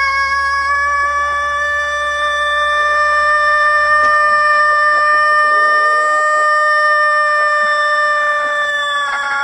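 Rooster crowing: one very long, drawn-out note held nearly steady in pitch, which trails off and ends near the end.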